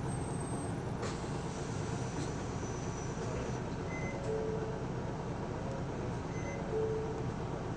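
Isuzu Erga city bus (PKG-LV234L2) running along the road, its diesel engine and road rumble heard from inside the cabin. From about four seconds in, a short beep sounds about every two seconds.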